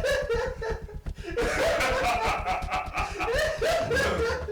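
People laughing in repeated short bursts, with a brief break about a second in.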